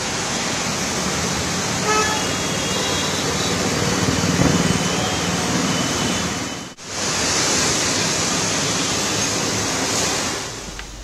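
Road traffic noise from a jam of vehicles, a steady wash of sound with a short car horn toot about two seconds in. The sound drops out for an instant near the seven-second mark, then carries on.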